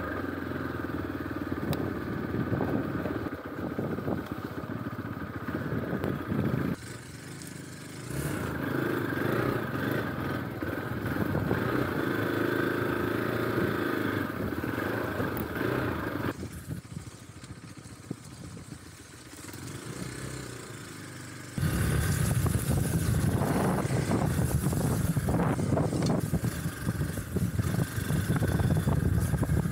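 Hero Xpulse 200 4V's single-cylinder engine running as the motorcycle is ridden along a dirt trail. The sound changes abruptly a few times and is loudest in the last third.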